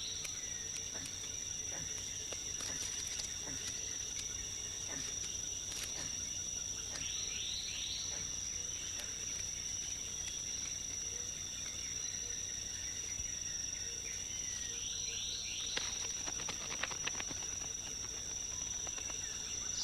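Tropical rainforest ambience: a steady high-pitched insect drone, with a bird calling in quick runs of three or four rising notes, about a third of the way in and again near the end.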